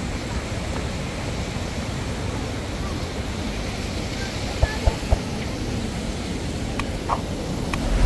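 Steady rush of a fast mountain stream and nearby waterfall, a constant full roar of water, with a few soft low thumps about halfway through.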